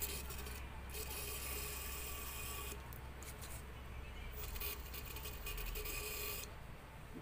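Aerosol cleaner hissing through a red extension straw into a plastic brake fluid reservoir, in a few long sprays with short breaks, as the solvent flushes dirt from inside the reservoir.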